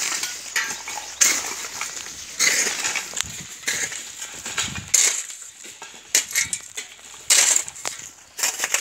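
Hand hoe scraping and dragging broken brick rubble over a dirt road, a gritty scrape with clinking brick chips about once every second or so.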